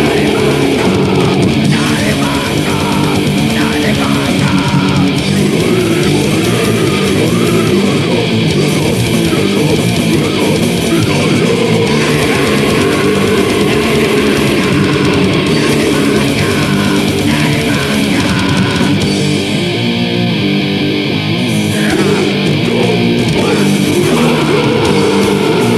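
Loud crust/grindcore punk song: heavily distorted electric guitar and bass playing without a break.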